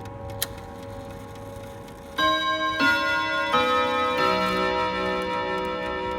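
Odo clock striking its chime melody: a run of ringing notes begins about two seconds in, each new note sounding over the last, after a single tick near the start.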